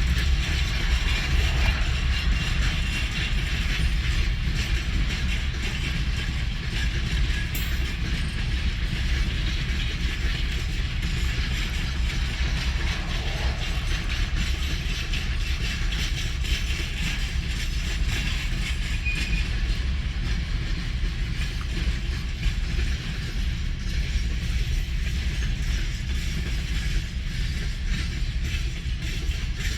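Freight train wagons rolling past steadily, with a heavy rumble and continuous metallic rattling and clanking of the cars.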